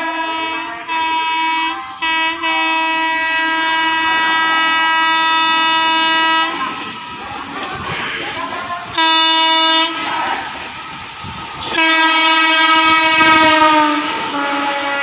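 WAP4 electric locomotive sounding its air horn in long blasts as the express approaches at speed, with a short blast in between. Near the end the horn's pitch drops as the locomotive passes, and the rush and clatter of the passing train follow.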